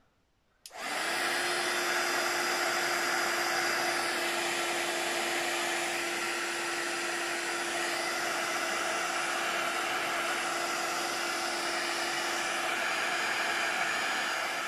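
Craft heat gun switching on about a second in and then running steadily: a loud rush of blown air over a steady motor hum, melting embossing powder on a paper cut-out.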